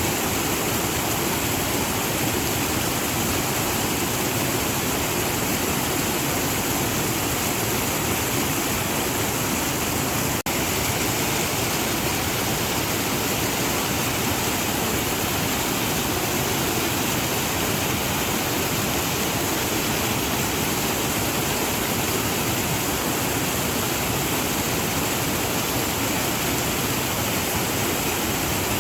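Waterfall rushing in a steady, dense wash of falling water, with a momentary drop-out about ten seconds in.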